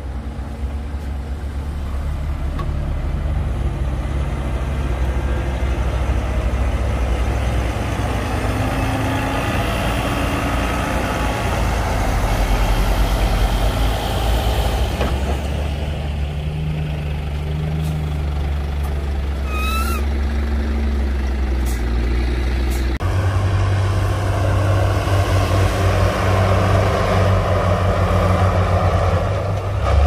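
Heavy diesel earthmoving machinery running steadily: a Komatsu D58P crawler bulldozer working soil alongside a loaded dump truck. The engine note changes abruptly about three-quarters of the way in, and a brief high squeak comes about two-thirds of the way through.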